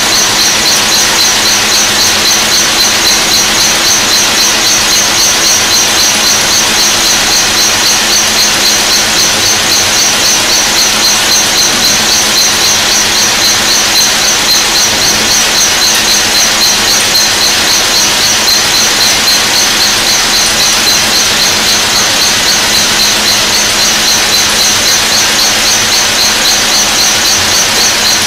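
Burgsmüller L5.4 thread-whirling head milling the flight of a metal screw element: a loud, steady, high-pitched cutting noise with a fast, even pulse as the inserts strike the workpiece.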